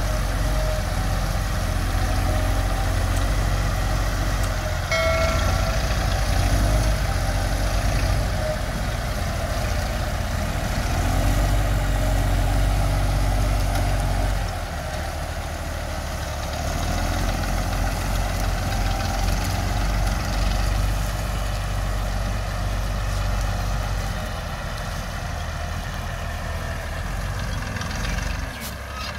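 Diesel engines of two farm tractors, a New Holland TS6.140 with a six-cylinder engine and a small Tafe 45DI, running together with a steady deep rumble as they work to move a loaded sugarcane trailer.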